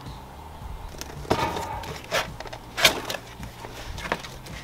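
A cardboard box being opened and handled: its flaps and the packed contents give several separate knocks, scrapes and rustles.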